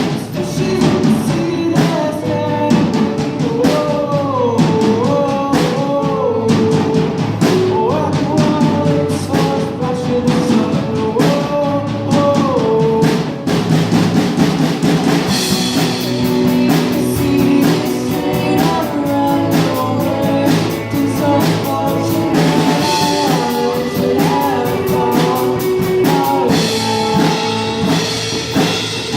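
Rock band playing a song: a lead vocal sings the melody over drum kit and guitar, and the cymbals grow brighter about halfway through.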